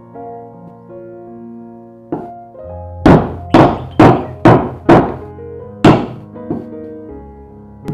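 Six heavy thuds from food preparation, about two a second, over soft piano background music.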